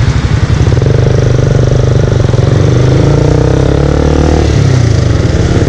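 KTM Duke 200's single-cylinder engine running under way at highway speed, with wind rushing over the microphone. The engine note falls for about a second around three seconds in, then picks up again.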